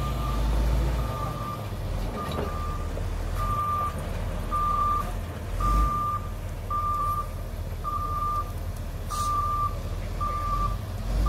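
Caterpillar 140K motor grader's backup alarm beeping steadily, about one beep a second, as the machine reverses, over the low steady rumble of its diesel engine.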